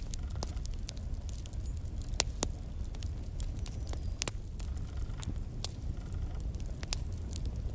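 Wood fire burning in a fireplace: a steady low rumble of flames with irregular sharp crackles and pops of burning logs, the loudest about two seconds in.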